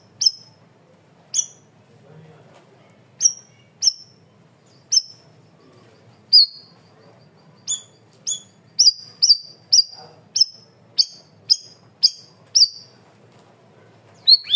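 Cucak rawis (bayeman) bird calling: short, sharp, high chips, spaced out at first, then a quick run of about two a second in the middle of the clip.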